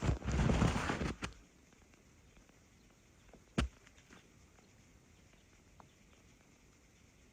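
Footsteps crunching in snow for about the first second and a half, then quiet woods with a single sharp knock about three and a half seconds in.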